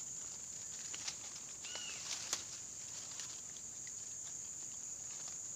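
Steady high-pitched insect chorus, with scattered faint clicks and one short chirp about two seconds in.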